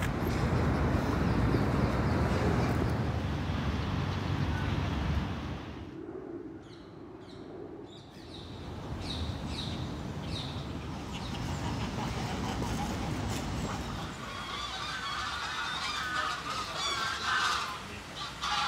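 Low, steady rumble of road traffic that cuts out about five seconds in. After it, geese honk and other birds call in short repeated notes, busiest in the last few seconds.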